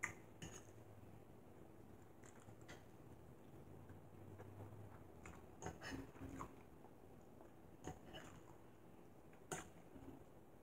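A fork clicking and scraping against a dinner plate about ten times, scattered and irregular, with quiet chewing between.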